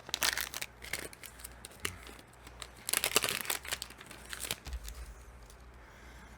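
Plastic wrapper of a trading-card cello pack crinkling and tearing as it is opened by hand, in two bursts: one in the first second and one about three seconds in, then lighter handling.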